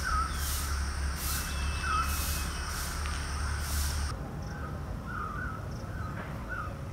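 A bird calling over and over in short, wavering notes. During the first four seconds, insects buzz in regular pulses over a low rumble, and both cut off suddenly.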